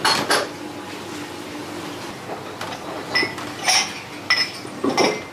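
Dishes and utensils clinking, four or five short ringing knocks in the second half, over a steady hum.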